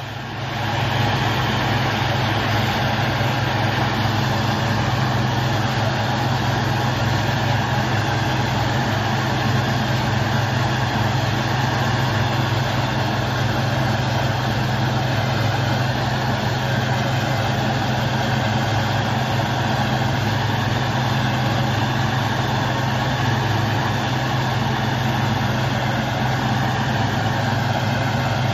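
Deutz-Fahr tractor's diesel engine running steadily with a low, even hum while it pulls and drives a Maschio Extreme 266 HTI round baler at work.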